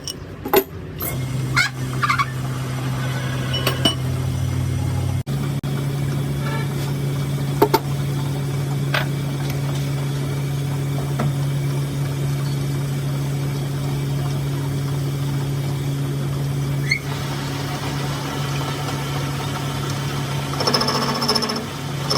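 A workshop machine's electric motor running steadily at one constant pitch, starting about a second in, with a brief dropout a few seconds later and a few sharp metallic clicks.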